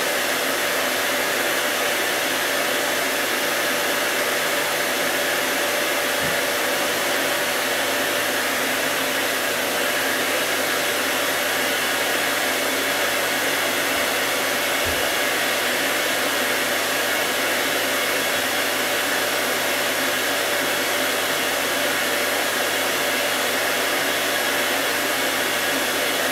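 Vacuum cleaner running steadily: an even rush of air with a faint steady whine.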